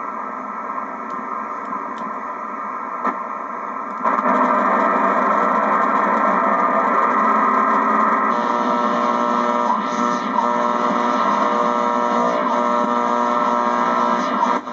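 Ten Tec Paragon shortwave receiver putting out band-limited static with steady carrier tones, jumping louder about four seconds in.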